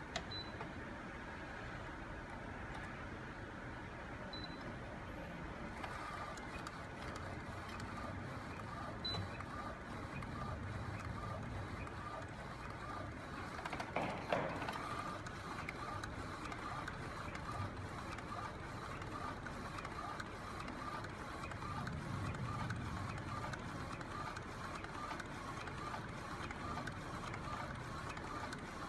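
Flatbed inkjet food printer running, its print-head carriage sweeping back and forth as it prints edible ink onto candies. A steady mechanical whir carries a quick, even run of ticks, with a single sharp knock about halfway through.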